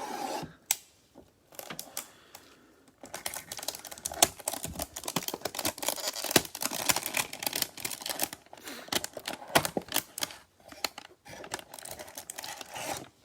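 Trading cards and their packaging being handled and shuffled: rapid clicking and rustling, a few scattered clicks at first, growing dense about three seconds in and running until just before the end.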